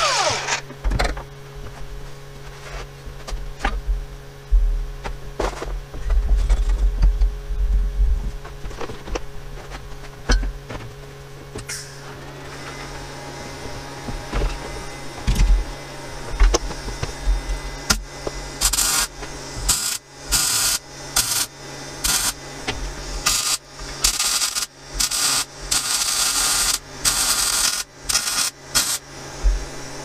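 An angle grinder winds down at the start, then a steady low hum with scattered knocks of handling. From a little past halfway, a welder fires in a run of short hissing bursts as tacks are laid on a metal tube.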